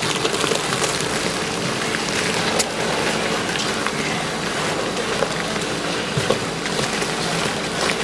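Steady rush of water from hoses spraying and splashing on wet concrete, with a faint low hum underneath.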